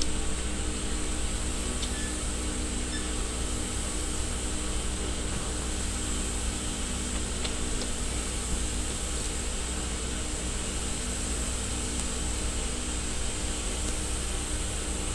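Steady hum of running machinery: a constant low drone with a hiss above it, broken only by a few faint ticks.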